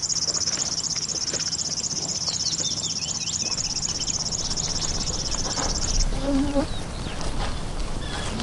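Insect trilling: a rapid, high, pulsing buzz that stops abruptly about six seconds in, with small birds chirping faintly.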